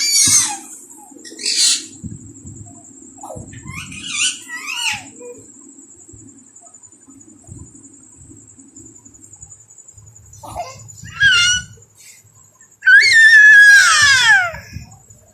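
Parrot squawking: several short, high-pitched calls, then a long, loud screech near the end that slides down in pitch.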